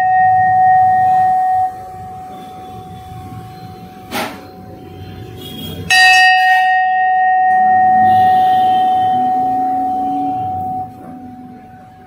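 A large bronze temple bell struck twice, each time ringing a long clear note with a higher overtone above it. After a few seconds the ringing drops sharply and lingers faintly. A light knock sounds between the strikes. The clean, lasting ring is what the test listens for as the sign of pure bell metal.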